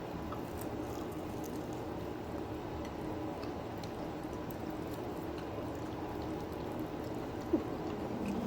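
Steady background noise, a low hum and hiss with a few faint clicks and a brief squeak near the end.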